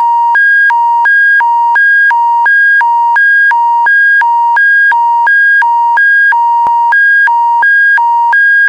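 Emergency alert attention tone: a loud electronic signal switching back and forth between a lower and a higher pitch about every third of a second, ahead of a public warning test broadcast.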